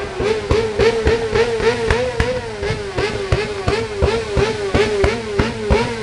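Motorcycle engine held on its fuel-injection rev limiter. The high engine note wavers up and down as the injection cuts out and cuts back in, with a sharp crack about twice a second.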